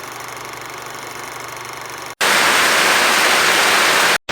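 Static hiss: a steady hiss with faint steady tones, then about two seconds in a sudden jump to a much louder, even white-noise hiss that cuts off abruptly near the end.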